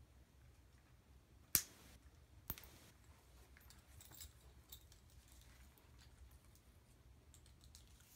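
Two sharp clicks, about a second apart, as a leash clasp is fastened onto a small dog's collar, followed by faint small clicks and rustling of the leash hardware.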